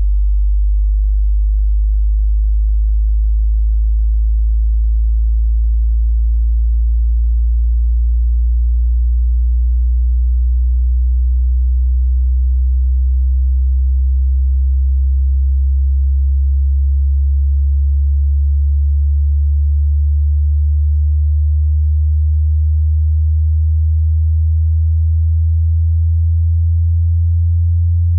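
Hearing-test sine tone: a single very deep pure hum that slowly and steadily climbs in pitch, part of a low-frequency sweep.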